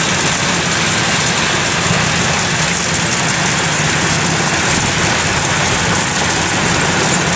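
Kubota DC-105X combine harvester running steadily under load as it cuts and threshes lodged, flattened rice: its diesel engine with the cutter and threshing drum working.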